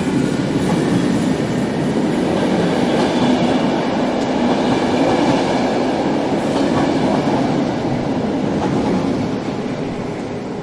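A train running along a station platform: a steady, loud rail rumble that fades near the end.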